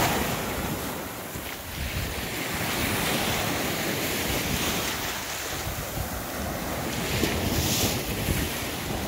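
Small waves breaking and washing up the sand at the water's edge, with wind buffeting the microphone.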